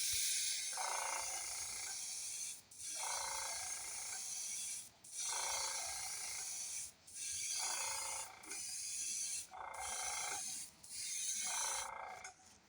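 Airbrush spraying a white base coat of paint: a steady hiss of air and paint in about six passes of roughly two seconds each, with short breaks where the trigger is let off.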